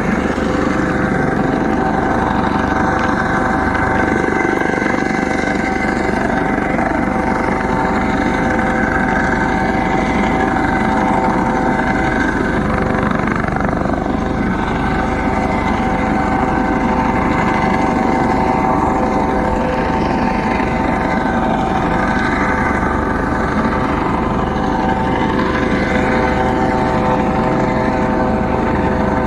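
Coast Guard helicopter hovering close by: a steady, loud mix of rotor noise and a whining turbine drone that holds level without letting up.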